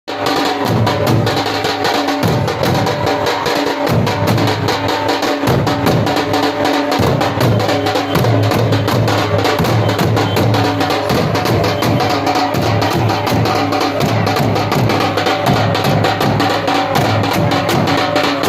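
Muharram procession drums playing fast, continuous strokes, with a deep, pulsing low beat beneath them.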